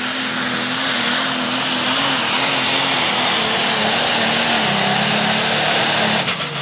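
Turbocharged diesel engine of a New Holland Pro Stock pulling tractor at full throttle, dragging a weight-transfer sled: a loud, steady drone whose pitch wavers, then sinks about four and a half seconds in as the engine labours under the growing load. Near the end the throttle comes off and the note drops, with a high turbo whistle falling away.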